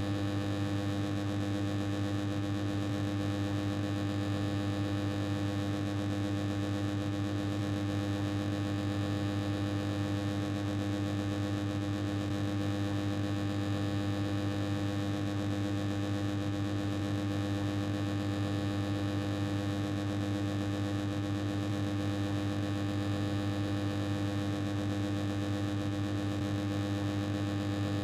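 Old, noisy air conditioner running steadily: a constant mechanical hum with a strong low drone and higher overtones over a hiss of rushing air.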